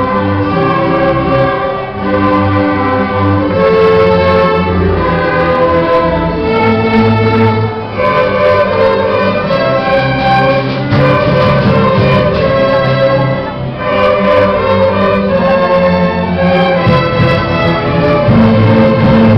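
A musical ensemble playing a carnavalito, the Andean folk dance tune, in live performance.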